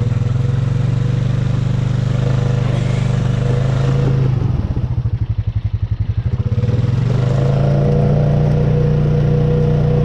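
Honda Rubicon ATV's single-cylinder engine revving under load while reversing out of deep mud. About four seconds in it drops to an idle with a slow, even beat for a couple of seconds, then revs up and holds steady again.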